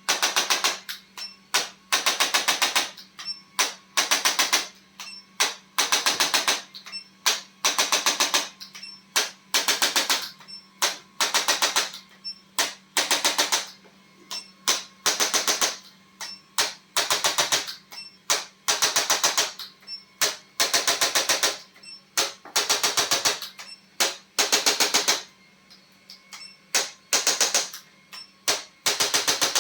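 Handheld electric percussion device rattling in short repeated bursts of very fast tapping, about one to two bursts a second with brief gaps between them.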